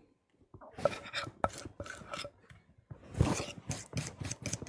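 A metal utensil scraping and clicking against a bowl and pan as the egg yolk and pecorino mixture is scraped out onto hot pasta, with a louder scrape near the middle.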